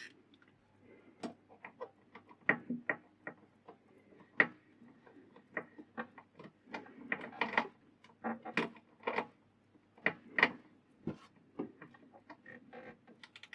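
Irregular clicks and light metal taps, some in quick clusters, from a wrench working the mini lathe's mounting bolts as they are tightened down again onto a thin shim under the bed foot.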